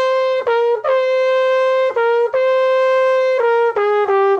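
Solo B-flat trumpet playing a melody line: a held high D (first valve) alternating three times with a short C, then stepping down through C, B and A near the end.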